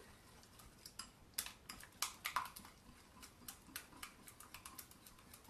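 Sourdough starter being stirred briskly in a glass bowl to whip air into it: faint, irregular light clicks of the utensil against the glass, several a second.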